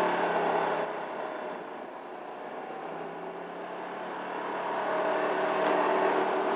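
Honda Helix CN250 scooter's single-cylinder engine running under way, heard from the rider's seat. Its steady note drops quieter about a second in and builds back up over the last couple of seconds.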